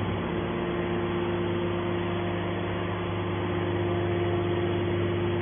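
Hydraulic power unit of a scrap metal baler running with a steady hum while its hydraulic cylinder swings the press lid down.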